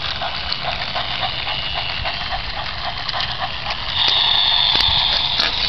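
Battery-powered plastic toy train running, its small geared motor giving a rapid clicking whir. About four seconds in it gets louder and a high steady whine joins.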